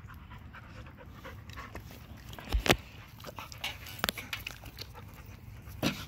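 A Chihuahua and a puppy playing and panting, with a few sharp knocks and clicks; the loudest knock comes about two and a half seconds in.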